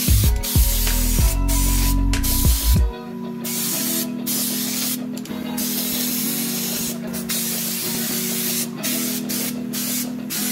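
Compressed-air spray gun hissing as it sprays coating onto a fuel tank, in bursts broken by short pauses where the trigger is let go, the longest about three seconds in. Background music plays underneath, its low notes loudest in the first three seconds.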